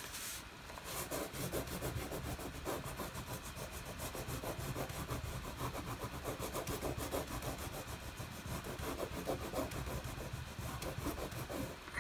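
Wax crayon rubbed rapidly back and forth on thick paper, colouring in a solid area: a fast, even run of dry scratchy strokes, several a second.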